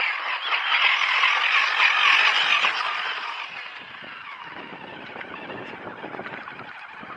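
Radio-controlled scale truck driving over gravel and mud: motor and tyres grinding on loose stones, loudest for the first three seconds, then quieter with scattered small crunches.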